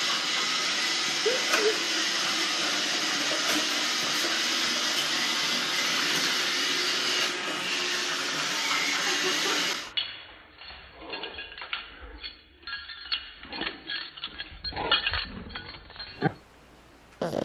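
Robot vacuum running under a riding pug, a steady whirring hiss with a few light clinks. It cuts off about ten seconds in, and scattered knocks and clatter follow.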